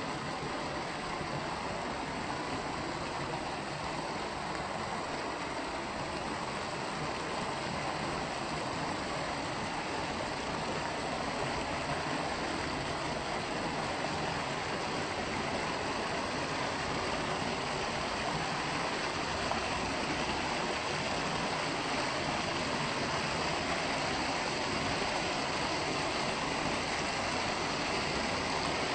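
River water rushing steadily over falls or rapids.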